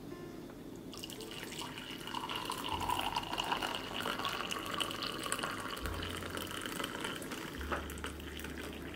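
Water poured in a steady stream from a glass electric kettle into a ceramic mug, splashing as the mug fills.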